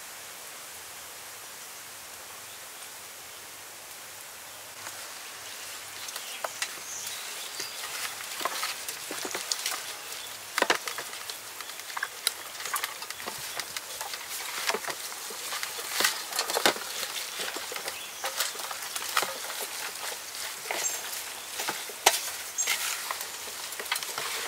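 Hands rubbing and squeezing chopped chilli, lemongrass and seasonings into a raw Muscovy duck in a metal tray: irregular wet squelching and crackling clicks, starting about five seconds in over a steady soft outdoor hiss.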